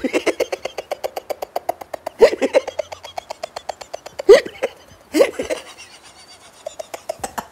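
A man laughing uncontrollably in a fast, even chop of short 'ha' pulses, about ten a second, like a helicopter's rotor. It is broken a few times by loud rising whoops and eases off for a moment before picking up again near the end.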